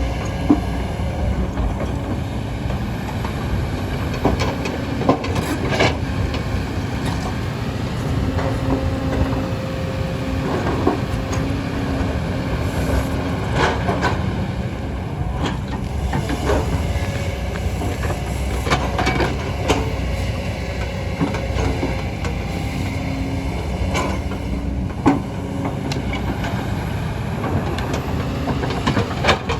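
Kobelco hydraulic excavator's diesel engine running steadily under load, with a hum that comes and goes as the hydraulics work and scattered sharp knocks and clanks of the bucket and rock.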